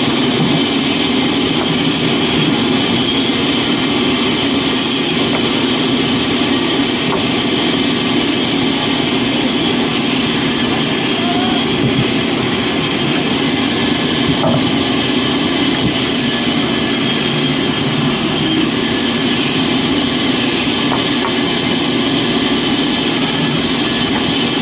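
Woodworking machinery running steadily, a constant motor noise that does not let up or change.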